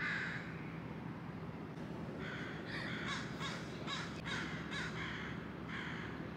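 A crow cawing repeatedly: single harsh caws near the start and toward the end, with a quick run of caws from about two to five seconds in. A faint steady low hum runs underneath.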